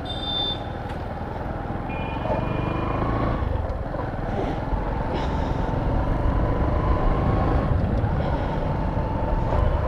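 Busy road traffic: a steady rumble of engines and tyres, with short vehicle horn blasts near the start and again about two to three seconds in.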